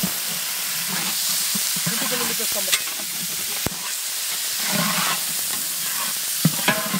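Raw duck pieces sizzling in hot oil with fried onions in a large metal pot, while a metal ladle stirs and scrapes them around; the meat is searing in the oil. Two sharp knocks of the ladle against the pot stand out, about three and four seconds in.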